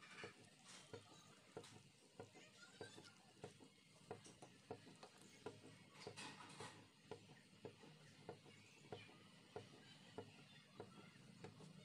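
Wooden spoon stirring a thick gram-flour and yogurt mixture in a steel pot, knocking faintly against the pot's side about every half second to second.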